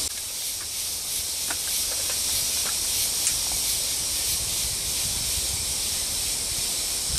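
Steady high-pitched hiss of insects droning in the trees, with a few faint clicks.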